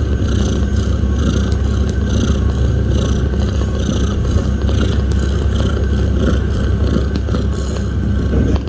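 A kitten purring: a steady low rumble that swells and eases at a regular rhythm of roughly one cycle a second.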